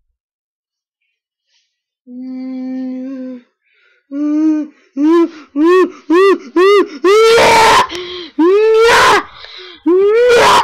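A person's voice doing a mock zombie moan: about two seconds in, one held low note, then a run of short rising-and-falling wails that come faster and grow louder until they distort.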